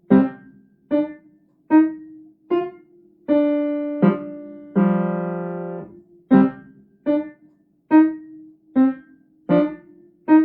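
Piano playing a slow, single-note melody in a C minor five-finger position, each note struck separately and left to ring. There is roughly one note a second, with two longer held notes partway through.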